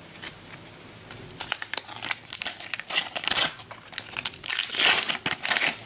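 Foil sticker-pack wrappers crinkling and crumpling in the hand, a run of quick crackles that starts about a second and a half in.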